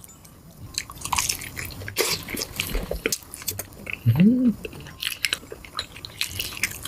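Close-miked eating sounds: a person biting and chewing food, with wet smacks and many short clicks. About four seconds in there is a short hummed 'mm' that rises and falls in pitch.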